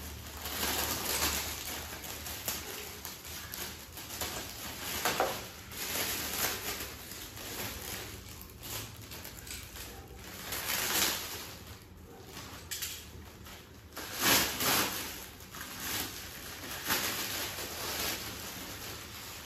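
Clear plastic wrapping crinkling and rustling in uneven bursts as it is pulled and torn off a moulded plastic baby bath sling.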